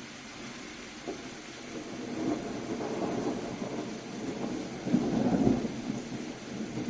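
Steady rain hissing, with a roll of thunder rumbling in from about a second in, swelling in waves and loudest about five seconds in.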